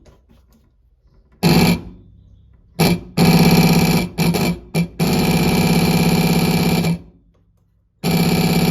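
Soviet SS-1 220 V electric signal siren switched on and off in a series of bursts, from a fraction of a second up to about two seconds long. Each burst gives a loud, harsh buzzing tone at a steady pitch, with no rise or fall, which the owner suspects may not be the sound it should make.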